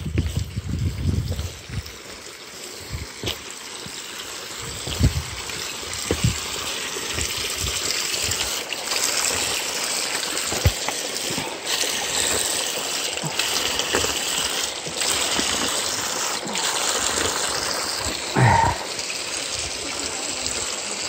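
Steady rushing of running water, like a mountain stream, growing louder after the first few seconds. Footsteps on the rocky path give short thumps, and there is one brief louder sound about 18 seconds in.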